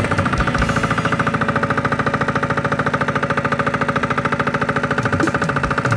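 Small engine running steadily with a fast, even chugging pulse.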